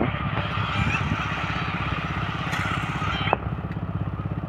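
Engine running steadily with a regular beat of about ten pulses a second. There is a short, sharp click about three seconds in.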